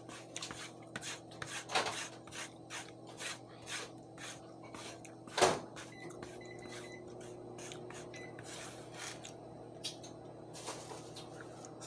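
Metal spoon scraping and scooping food across a plate in short, irregular rubbing strokes, with one sharp louder clack about five seconds in.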